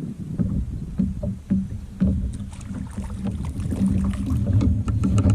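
Nucanoe Frontier 12 fishing kayak on the water: a low rumble and steady low hum with many small knocks and clicks, growing louder toward the end.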